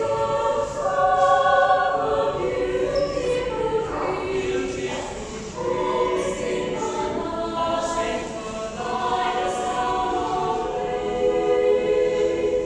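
A mixed choir singing in several parts, with long held notes that move together from chord to chord.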